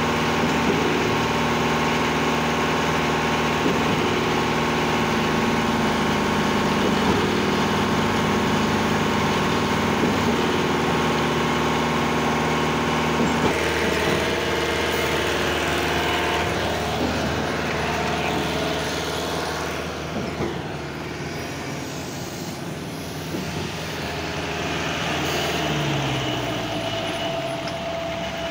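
Aquarius trailer concrete pump running as it is fed fresh concrete from a batching plant: a steady machine hum with a knock about every three seconds, typical of the pump's pistons changing stroke. About halfway through the hum turns quieter and less even, and a falling tone is heard near the end.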